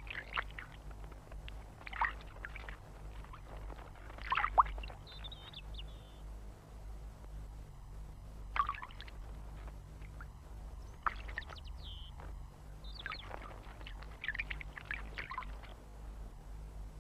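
Small songbirds giving short, sharp calls spaced a few seconds apart, some as brief whistled notes, over a steady low hum.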